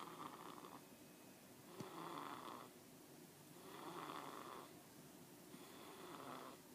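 Faint snoring, one snore about every two seconds, four in a row.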